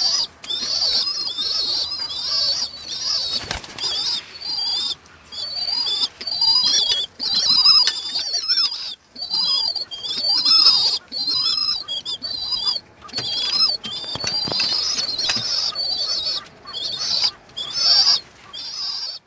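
Young pigeon squabs squeaking over and over in short, high, wavering calls, with flutters of their wings: the begging calls of squabs learning to feed themselves from a grain dish.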